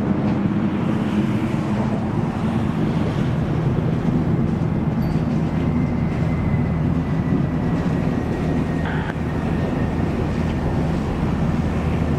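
Airbus A330-300's twin Rolls-Royce Trent 700 turbofans at takeoff power as the airliner climbs away: a loud, steady, deep rumble, with a faint high whine sliding slightly lower in the second half.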